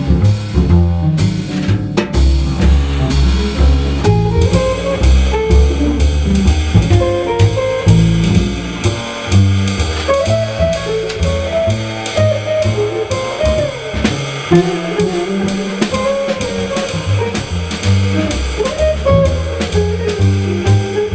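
Live jazz trio playing an instrumental number: drum kit keeping a steady beat under double bass and guitar.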